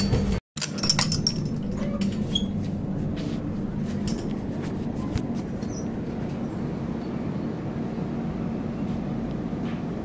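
Steady hum and rumble of an LHB passenger coach running, heard onboard, with a few light clicks about a second in. The sound cuts out briefly about half a second in.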